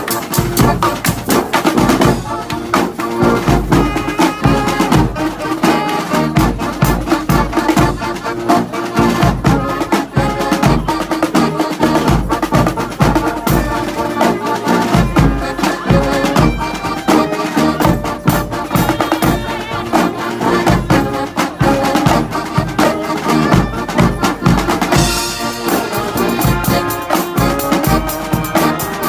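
Marching band playing live: brass horns carrying a tune over a steady, driving drum beat.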